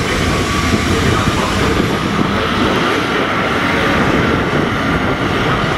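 Euro Cargo Rail Class 247 (Vossloh Euro 4000) diesel locomotive pulling a tanker train away at full power, its EMD V16 two-stroke engine working hard with a steady loud beat.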